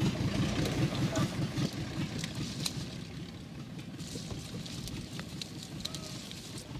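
Small farm tractor's engine running steadily at idle, a low even rumble, with a few light clicks over it.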